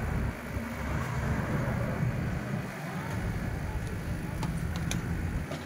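Steady outdoor street-food-market ambience: a low rumble of background noise, with a few faint clicks near the end.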